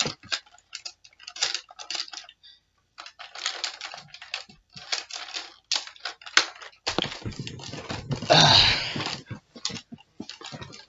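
Plastic clicking and clattering of Nerf blasters being handled and shifted about, in quick irregular clicks. A longer, louder stretch of clatter and rustling runs from about seven to nine seconds in.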